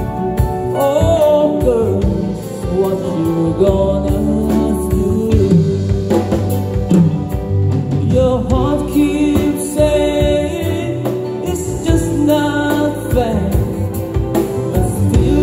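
A live band playing an instrumental stretch of a soft-rock ballad, with drum kit, congas, electric guitar, bass guitar and a melodic lead line.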